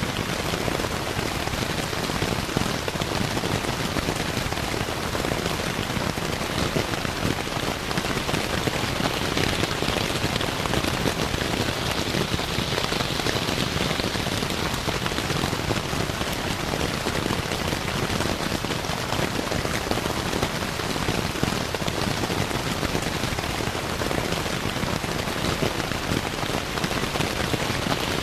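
Steady rain pattering on a tent's fabric, a dense, even patter with no let-up.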